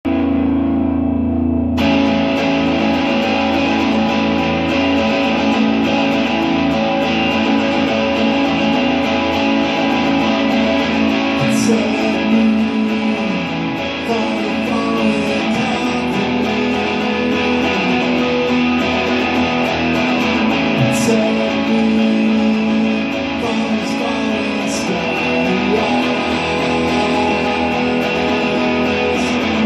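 Electric guitar music played live, chords held and ringing steadily.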